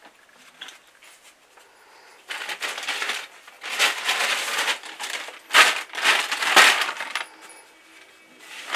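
Plastic bags and papers rustling as they are handled and rummaged through, in several bursts after a quiet start, with a couple of sharper knocks near the end.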